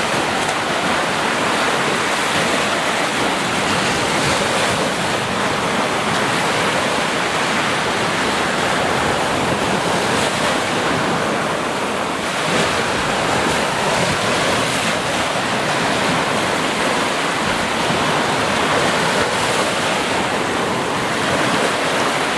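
Sea surf: a continuous, even wash of waves with only slight swells in level.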